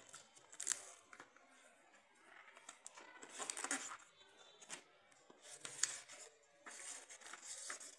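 A cardboard shipping box being opened and a white cardboard phone box slid out and handled. The cardboard and paper rustle and scrape in several irregular bursts, with a couple of sharp clicks.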